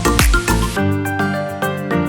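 Background electronic music: a beat with heavy bass drops out about a second in, leaving sustained keyboard chords.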